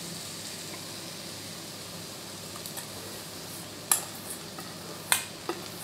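Grated butternut squash and chopped onions sizzling steadily in hot oil in a frying pan, with a couple of sharp knocks against the pan about four and five seconds in.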